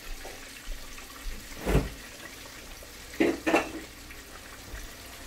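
Tomato and coconut cream sauce simmering in a cast iron skillet, a steady liquid hiss. There is a knock nearly two seconds in and two quick clicks just after three seconds.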